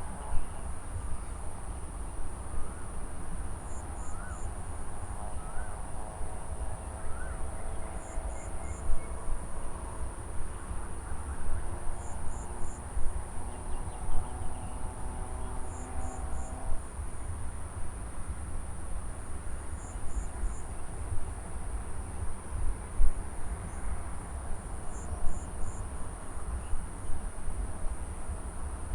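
Field ambience of insects: a steady high-pitched cricket drone, with a short three-pulse call repeating about every four seconds. Faint chirps in the first half, over a constant low rumble.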